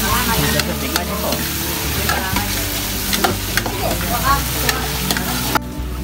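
Meat pieces and garlic sizzling in oil in a large steel wok, stirred with a metal ladle that scrapes and clinks against the pan. Near the end the sizzling cuts off suddenly as broth is poured in.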